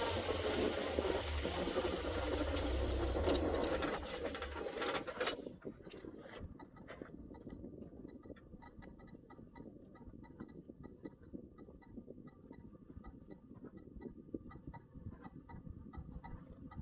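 Vehicle running over dirt, a steady rumble that stops abruptly with a click about five seconds in as it pulls over. After that the engine runs quietly, with light, rapid ticking.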